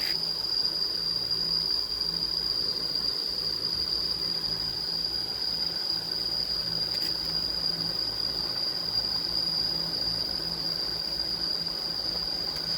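Insects chirring in one steady high-pitched tone without a break, over a faint low hum.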